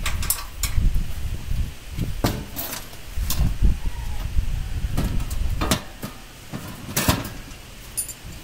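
Irregular metal knocks and clanks from the steel parts of a concrete block moulding machine being handled and set in place during assembly, over a low rumble that drops away about two-thirds of the way through.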